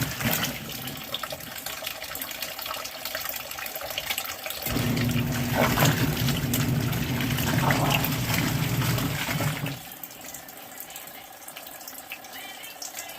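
Water running from the shower into a small portable washing machine's tub as it fills. A motor hum cuts out about half a second in, comes back at about five seconds and stops again near ten seconds.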